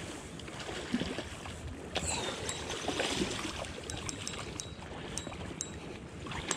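Flowing river water, with scattered light clicks.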